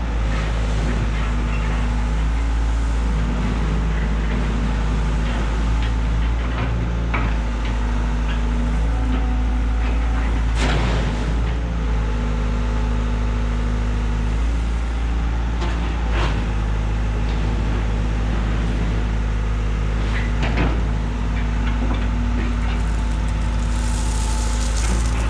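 Heavy earthmoving machine's diesel engine running steadily under work, with a few short knocks and scrapes from the machine moving stone.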